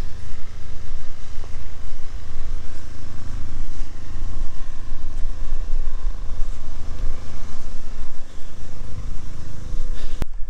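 Steady low rumble with a constant motor-like hum, cutting off abruptly near the end.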